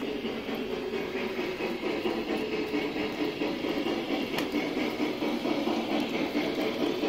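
Steady whir of the electric motors and gearing in two G-scale model steam locomotives, built from AristoCraft 4-6-2s, as they push a snowplow car through snow on the track.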